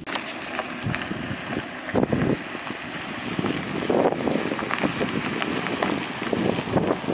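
Wind buffeting the microphone outdoors: a gusty, uneven noise with no clear tone.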